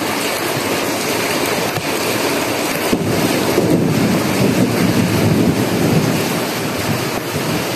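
Heavy monsoon rain pouring steadily onto leaves, with a deeper rumble swelling in the middle.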